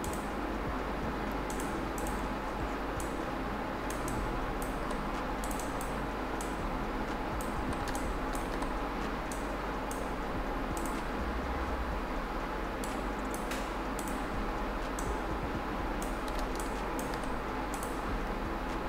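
Irregular light clicks of a computer mouse and keyboard being worked, sometimes several in quick succession, over a steady low hum and hiss.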